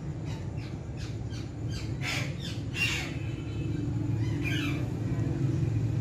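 Rose-ringed (Indian ringneck) parakeet giving a quick run of short squawks, loudest about two to three seconds in, then one more call a little later, over a steady low rumble.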